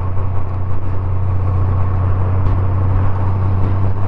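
A 1989 motorcycle's engine running steadily at one even pitch, a constant low drone.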